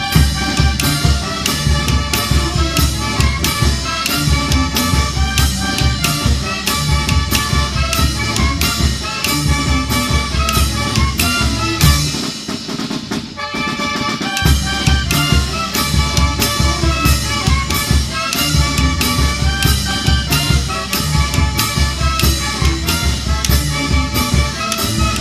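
Marinera norteña music played by a brass band with trumpets and drums at a brisk rhythm; the bass and drums drop out briefly about halfway through.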